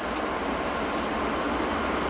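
Class 232 'Ludmilla' diesel locomotive approaching with its sixteen-cylinder two-stroke Kolomna engine running, a steady sound growing slightly louder as it nears.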